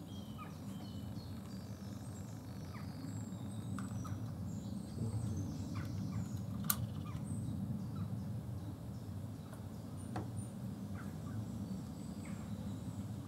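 Small woodland birds giving scattered short chirps and calls over a steady low background rumble, with a single sharp click about two thirds of the way through.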